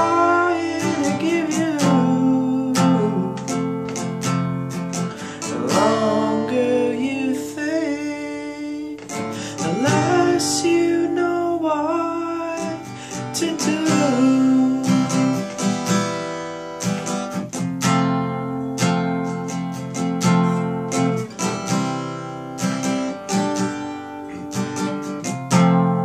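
Acoustic guitar strummed in a steady rhythm, with a man's voice singing long, drawn-out notes over it for about the first half, then strumming alone.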